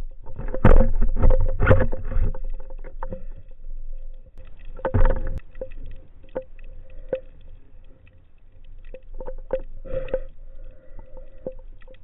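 Water rushing and splashing in loud bursts around the camera, with scattered sharp clicks and a faint steady hum, dying down toward the end.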